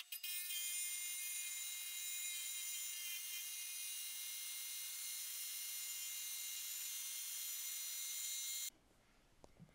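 Small wet tile saw's diamond blade cutting through petrified wood: a steady high-pitched whine made of many tones over a gritty hiss. It cuts off suddenly near the end.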